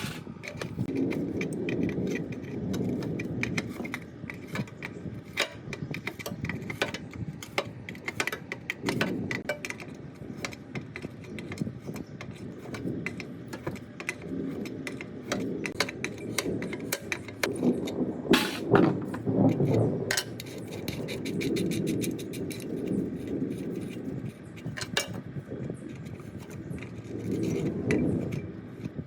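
Hand work on metal parts of an old plate compactor: bouts of scraping with irregular metallic clicks and clinks, busiest near the middle.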